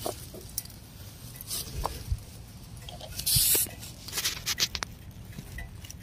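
Short burst of air hissing at a riding mower's tire valve stem about three seconds in, among scattered light clicks and rubbing from hands working the valve and air chuck.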